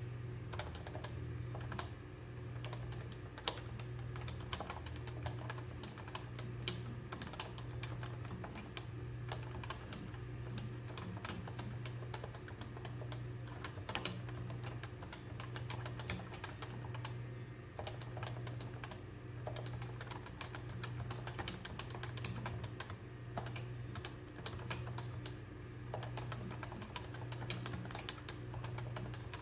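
Continuous typing on a Topre Realforce 104UB keyboard with variable-keyweight Topre capacitive switches: a dense, irregular run of soft keystroke clicks, several a second. A steady low hum that swells and fades slowly runs underneath.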